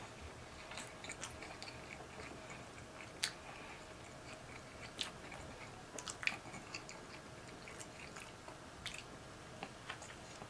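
A person chewing and biting a Subway sub roll close to the microphone: soft, wet mouth clicks and smacks scattered irregularly over a faint background hiss.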